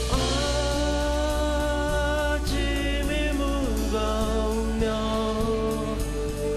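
Live acoustic band music: a male voice singing long held notes over acoustic guitars, upright bass and drums.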